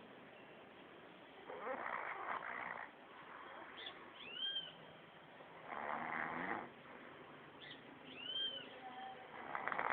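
A person snoring: three rough snores about four seconds apart, the last starting near the end, with a short high whistling note in each gap between them.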